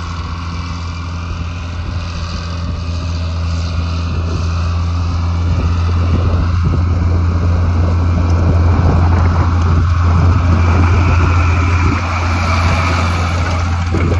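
John Deere 4960 tractor's six-cylinder diesel running steadily under load while pulling an aerator. The low engine drone grows louder as the tractor comes close and eases off slightly near the end.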